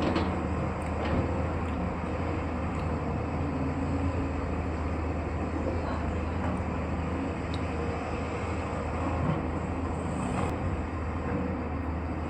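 Heavy construction machine's engine running steadily: a constant low rumble, with a few faint clicks over it.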